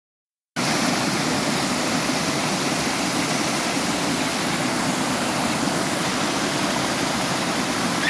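Small waterfalls and cascades pouring over rocks into a pool: a steady rush of falling water that starts abruptly about half a second in.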